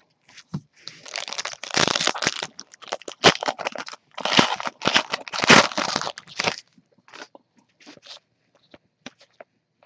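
Trading card pack wrapper being torn open and crinkled close to the microphone, dense crinkling in two long stretches, then a few faint clicks.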